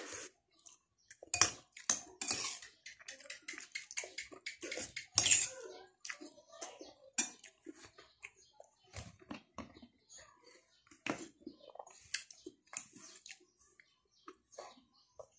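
Close-up eating sounds: a metal spoon clinking and scraping on a ceramic plate, with chewing and wet mouth noises, in an uneven string of short, sharp sounds.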